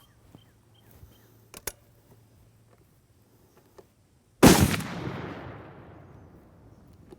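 A single shot from an M82A1 Barrett .50-caliber semi-automatic rifle about four seconds in. It is very loud and sharp, and is followed by a long echoing rumble that fades away over about two seconds. A few faint clicks come before it.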